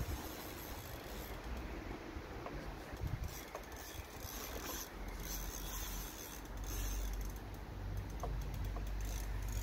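Daiwa fixed-spool reel working while a hooked mirror carp is played on a hard-bent feeder rod: the reel's mechanism rasps and clicks in short, irregular spells. A low rumble comes in about halfway through.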